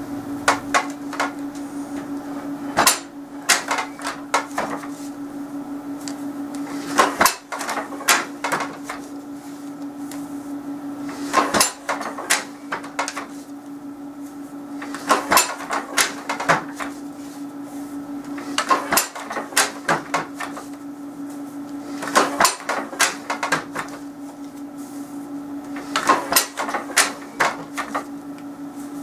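Wooden floor loom in use, weaving a warp-faced band: every three and a half to four seconds a cluster of wooden knocks and clatter as the shed is changed by treadling and the weft is beaten in, with softer handling sounds of the shuttle between. A steady low hum runs underneath.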